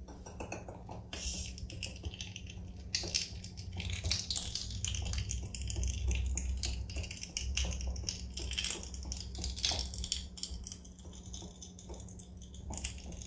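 LEM 5 lb vertical sausage stuffer being hand-cranked, forcing ground pork bratwurst meat into the casing: irregular squelching, crackling and small clicks. A steady low hum sits underneath.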